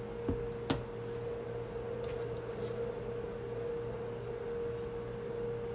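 Steady room hum with one constant mid-pitched tone. Two light clicks in the first second as a glass of iced coffee is handled.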